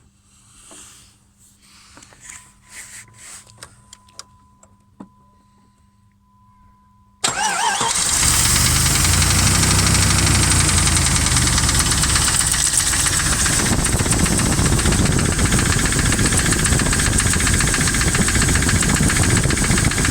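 Jeep 4.7-litre V8 is started about seven seconds in, after a few faint clicks, and then runs steadily at idle. It has the knock that appeared after the valve stem seals were replaced, which the owner suspects comes from hydraulic lifters and rocker arms that were refitted in mixed-up positions.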